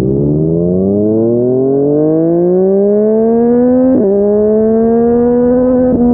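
Yamaha MT-09 three-cylinder engine through a Yoshimura R55 slip-on exhaust, accelerating with rising revs. Two quick upshifts, about four seconds in and again near the end, each drop the pitch sharply before it levels off.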